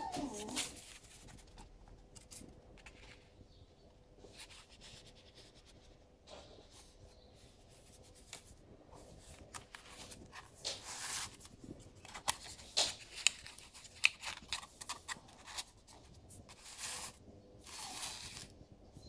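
Card stock being handled by hand: on-and-off paper rustling and sliding, with a few sharp clicks, busier in the second half.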